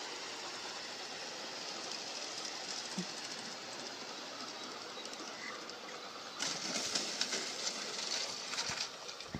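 G-scale model train cars rolling over garden track under a steady hiss, then from about six seconds in a loud run of plastic clattering and rattling.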